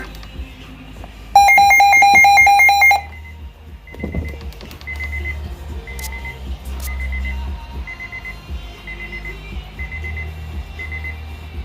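Weather radio alarm sounding: a loud, rapidly pulsing electronic beep for under two seconds, then a quieter high beep repeating about every two-thirds of a second. A low electrical hum runs underneath.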